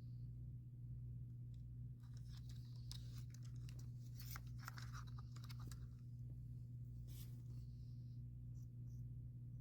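Faint clicks and scrapes of small parts and tools being handled during a drone arm hinge repair, over a steady low hum.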